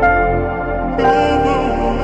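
Ambient new-age background music: held chords with new notes struck about once a second, and a brighter, fuller layer coming in about a second in.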